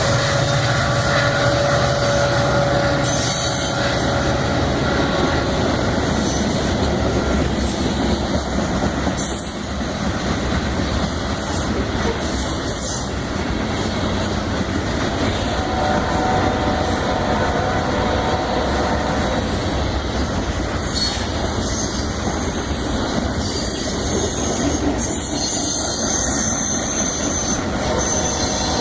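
Loaded grain train's freight cars rolling past: a steady rumble of steel wheels on rail with clickety-clack and high wheel squeals that come and go several times.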